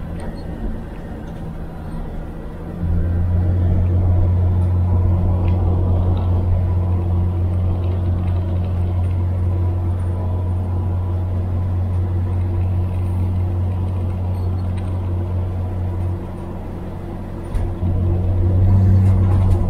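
A 1978 Chevrolet Nova under way on a test drive, its engine and drivetrain making a steady low drone. The drone grows louder about three seconds in, as if under throttle, eases off briefly near the end, then comes back.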